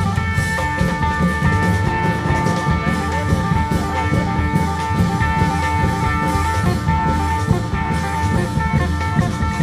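Isan applied long-drum band (klong yao prayuk) playing: a heavy, steady drumbeat under a sustained melody.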